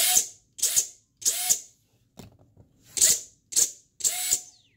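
FPV quadcopter brushless motors driven by a DALRC 40 A ESC, spun up and cut back to zero throttle about six times in quick succession. Each one gives a short whirring burst whose pitch rises and then holds. This is a bench test to expose a motor desyncing on the ESC.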